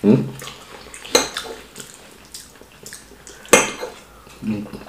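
Cutlery clinking against dishes during a meal, with two sharp clinks, one about a second in and a louder one a little past the middle. A brief vocal sound comes at the start and again near the end.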